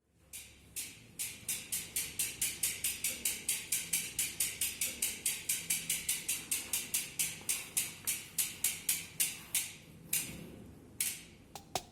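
Bicycle rear hub's freehub ratchet clicking as it turns, about four or five evenly spaced clicks a second; the clicks slow near the end and give way to a few scattered last clicks.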